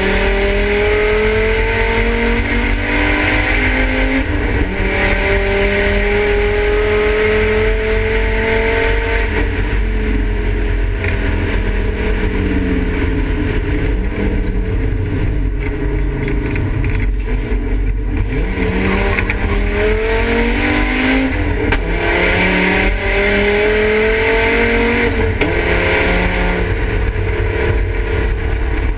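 Volvo 850 race car's five-cylinder engine heard from inside the stripped cabin under hard acceleration. It rises in pitch through the gears with a break at each upshift, drops lower and wavers through the middle while the car slows and takes corners, then climbs through the gears again near the end. Road and wind noise run underneath.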